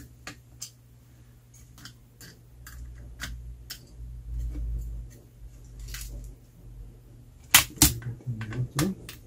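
Small scattered clicks and taps of a screwdriver, screws and plastic parts as a Casio calculator's circuit boards are unscrewed and lifted out of the case. A low rumble comes in the middle, and a quick run of louder, sharper clicks near the end.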